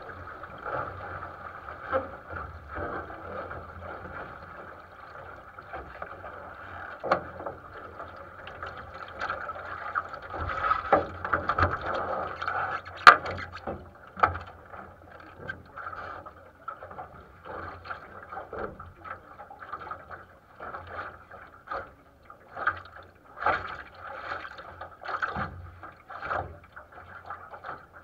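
Water rushing and slapping against the hull of a 470 sailing dinghy under way, with frequent irregular knocks and taps on the boat; a sharp knock about thirteen seconds in is the loudest.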